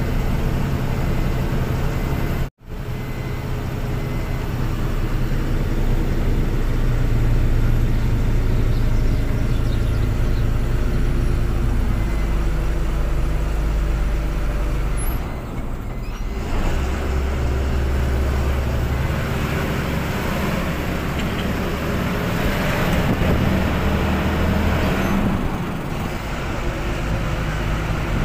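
Truck's diesel engine running while driving, heard from inside the cab, with steady road noise. The sound cuts out for an instant about two and a half seconds in. The engine note changes about halfway through, and the road noise grows louder for a few seconds after that.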